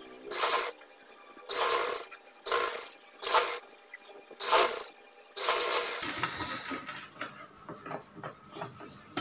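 Singer sewing machine run in short spurts while a collar band is stitched onto a blouse: about six half-second bursts roughly a second apart, then a quieter stretch of fabric being handled near the needle.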